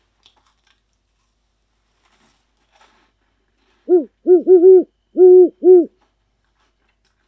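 Owl hooting: a run of six low hoots starting about four seconds in, some short and some drawn out, several following close on one another.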